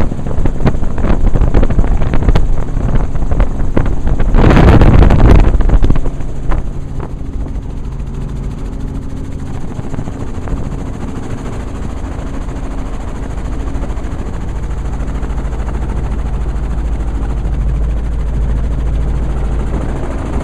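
Helicopter in flight: a steady drone of engine and rotor, with a loud rushing burst about five seconds in and rapid knocks through the first few seconds.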